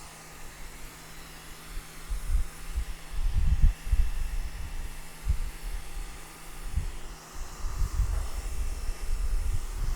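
Sun Joe SPX3000 electric pressure washer spraying water through its 40-degree nozzle onto concrete slabs. There is a steady hiss of spray over a low steady hum, broken by irregular low rumbles, the strongest about three and a half seconds in and around eight seconds.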